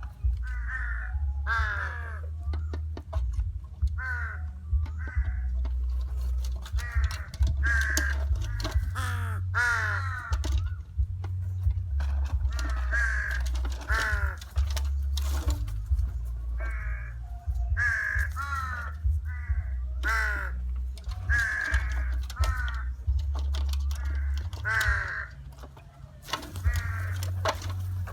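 Crows cawing over and over, many harsh calls in quick runs, over a steady low rumble.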